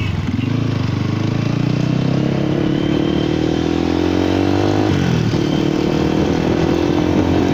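KPR 200 motorcycle's engine pulling away as it is ridden. The revs rise steadily, drop at a gear change about five seconds in, then climb again.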